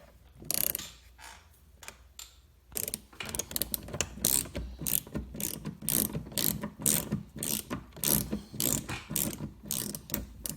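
Ratchet wrench with a Torx bit clicking in steady strokes as it backs out a Torx bolt holding the door trim, two or three clicks a second, starting about three seconds in.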